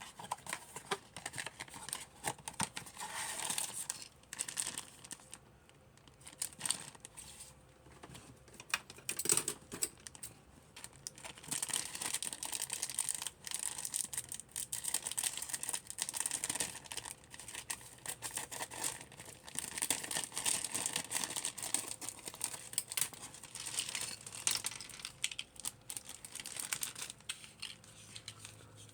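Toy packaging being handled and torn open: irregular crinkling and tearing with scattered clicks.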